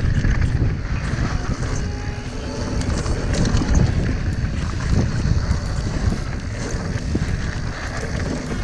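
Wind buffeting the microphone, a steady low rumbling rush with faint scattered clicks and rattles.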